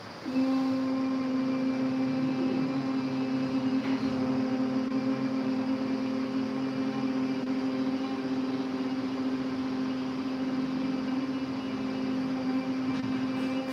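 Several people humming a long, steady closed-mouth 'mmm' (the 'om' of bhramari pranayama, humming bee breath), one held drone starting just after the beginning, the voices at slightly different pitches.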